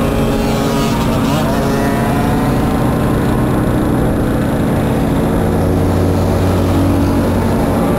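A pack of mopeds' small engines running together at about 30 km/h, heard from on board one of them, their engine notes overlapping. A strong low engine note joins from about five and a half seconds in until near the end.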